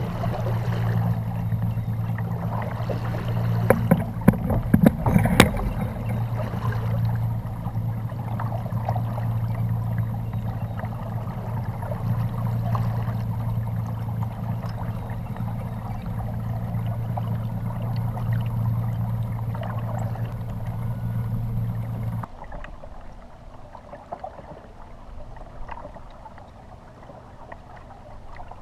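Kayak trolling motor humming steadily with water rushing along the hull. There are a few sharp clicks about four to five seconds in. The motor cuts off suddenly about 22 seconds in, leaving quieter water lapping.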